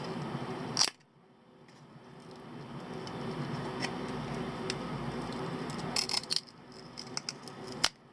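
Sharp clicks of a tool chipping and cracking at hard black epoxy potting over a circuit-board chip. There is one loud click about a second in, a quick cluster of clicks around six seconds, and another sharp click near the end, over a steady background hum.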